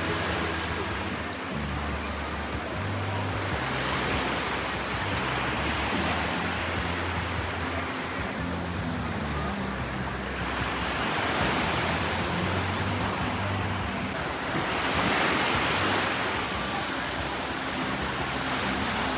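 Ocean surf washing onto a beach: a steady rush of waves that swells several times, with soft low background music under it.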